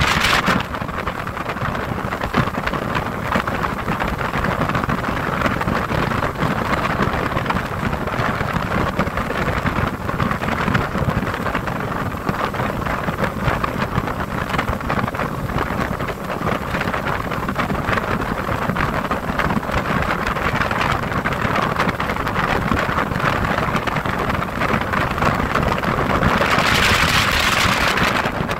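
Motorboat under way: a steady rush of wind and water over the engine's drone. Near the end the hissing rush swells for about two seconds.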